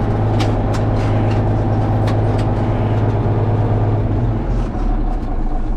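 Tractor diesel engine running steadily, heard from inside the cab, with a few light clicks early on. About four seconds in, the deep hum drops off as the engine note changes.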